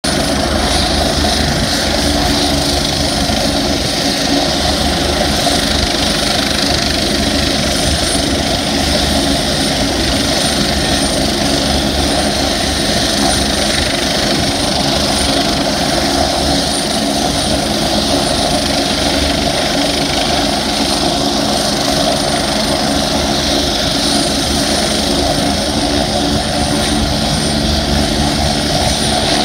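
Medical helicopter running on the ground with its rotor turning: a loud, steady high turbine whine over a fast low chop from the blades.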